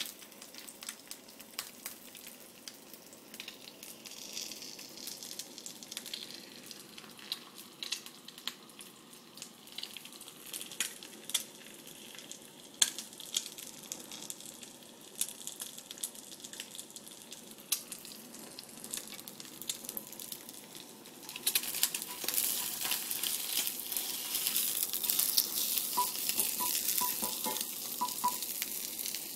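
An egg frying in hot oil in a pan: a steady sizzle with scattered sharp crackles and pops, growing clearly louder about two-thirds of the way through.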